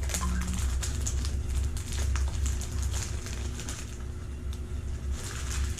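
GAN 251 2x2 speed cube being turned in the hands: irregular quick plastic clicks of its layers over a steady low hum.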